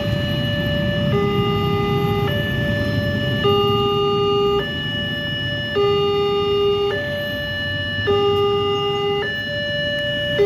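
Railway level-crossing electronic warning alarm sounding steadily, alternating between a lower and a higher tone, each held about a second. Underneath is the low rumble of motorcycle and car engines waiting at and moving over the crossing.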